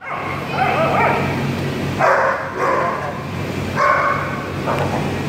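A group of dogs at play, yipping and barking: whiny rising and falling yips in the first second, then short sharp barks about two seconds in, again near four seconds and once more near the end. A steady low hum runs underneath.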